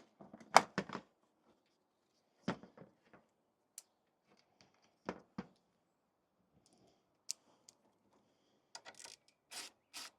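Hand tools undoing an 8mm fastener on a car's engine bay: scattered clicks and knocks of metal on the fitting, then near the end a quick run of short rasping strokes, about three a second, like a ratchet being worked.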